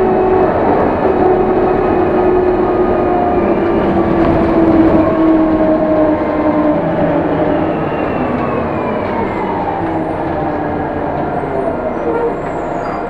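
City bus running, with a steady whine from the engine and drivetrain over road noise; the whine slides down in pitch over a few seconds midway through.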